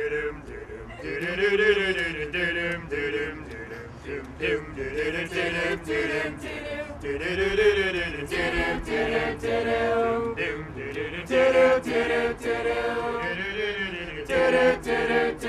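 A group of voices singing a cappella, a phrase that rises and falls and repeats every few seconds, with sharp percussive hits running through it.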